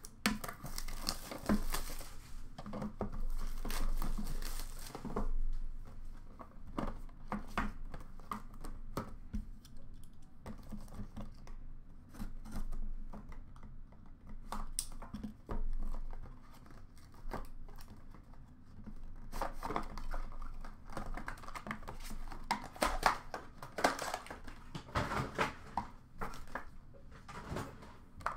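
Trading card boxes being unwrapped and opened by hand: plastic wrap torn and crinkled, cardboard flaps and lids handled, with light knocks. The sounds come in irregular bursts, busiest in the first few seconds and again from about twenty seconds in.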